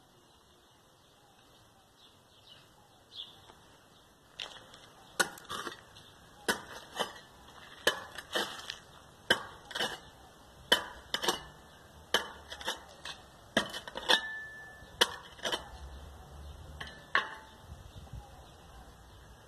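A bladed hand tool chopping into hard-packed ground to dig a small hole: a run of sharp, irregular strikes, about one or two a second, starting about four seconds in and stopping near the end.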